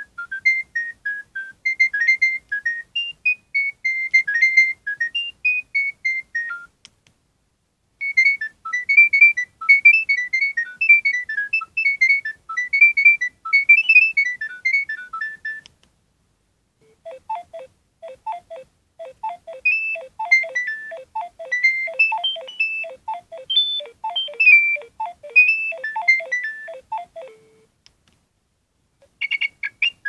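Nokia 6610i mobile phone's built-in ringtones previewed one after another through its loudspeaker. Each is a tune of short beeping notes. One tune ends about seven seconds in, a second runs after a short pause, a third alternates low and high notes, and a fourth starts near the end.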